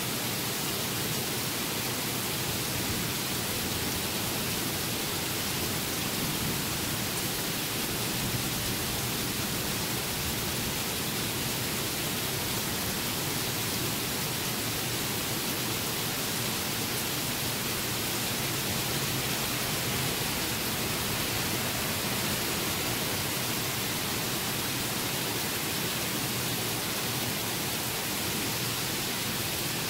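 Heavy rain pouring down steadily, an even, unbroken hiss.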